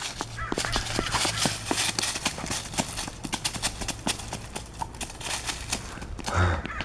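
Dry leaves crunching and crackling in quick, irregular bursts as children tramp and play in a pile of leaves.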